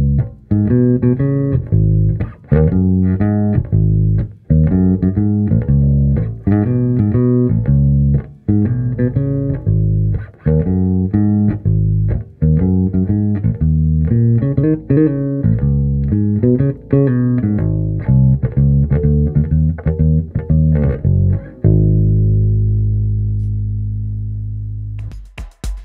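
Fender Precision Bass with a maple neck, played through a Markbass amp and a Gallien-Krueger 4x10 cabinet: a busy line of plucked bass notes. About 22 seconds in it ends on one long low note that rings and slowly fades.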